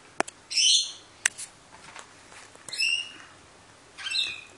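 A piglet letting out short, high-pitched squeaks three times while it plays: about half a second in, near the middle and near the end, with a few light clicks between them.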